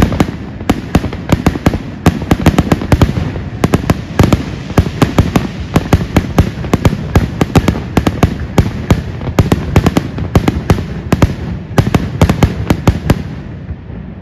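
Aerial fireworks exploding in a rapid, continuous barrage of loud bangs, several a second, that stops abruptly near the end and leaves only a fading rumble.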